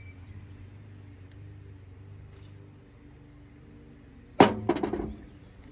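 A short, loud hissing squirt of oil from a spray can, about four and a half seconds in.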